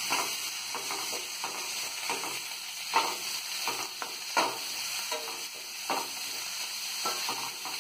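Chopped onions, green chillies and curry leaves sizzling in hot oil in a heavy metal pan while a metal spatula stirs them, scraping and knocking against the pan; the sharpest scrapes come about three and four and a half seconds in.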